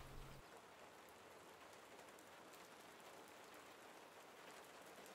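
Faint steady rain on the roof of a converted shuttle bus, heard from inside, with occasional light drop ticks. A low hum cuts off about half a second in.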